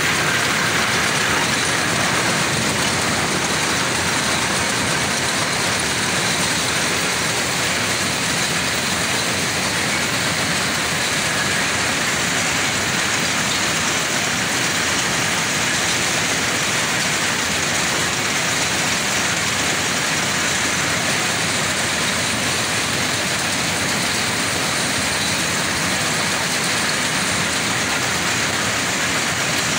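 Jute-processing machinery in a mill running, a loud, steady mechanical din with a dense hiss.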